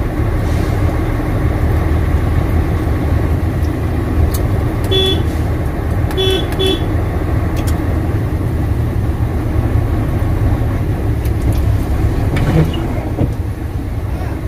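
Truck engine running with a steady low rumble, heard from inside the cab. About five seconds in a vehicle horn gives one short toot, then two quick toots a second later.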